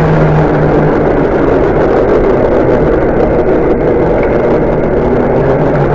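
Kyosho Fazer Chevelle RC drift car running across concrete, making a steady engine-like running sound.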